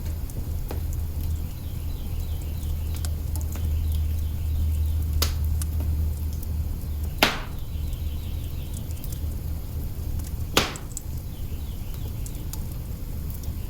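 Wood fire burning in an open hearth: steady crackling over a low rumble, with a few sharp pops, the two loudest about halfway and three quarters of the way through.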